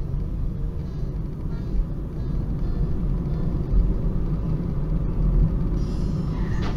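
Steady low rumble of a car driving along the road, recorded by its dashcam. Near the end a brief, higher-pitched sound cuts in.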